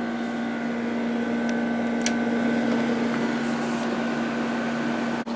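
Fedders Climatrol 8,000 BTU window air conditioner from 1989 running with its fan on low and its Rotorex compressor on: a steady, even hum with a faint high whine above it and the rush of the fan. A faint click about two seconds in.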